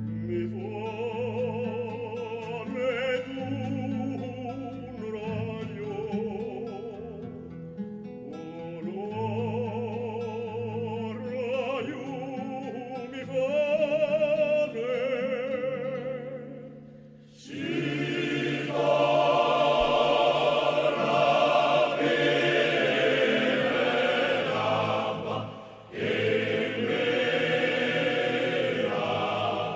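Singing: a solo voice with strong vibrato over low held notes, then about 17 seconds in a fuller group of voices comes in, louder.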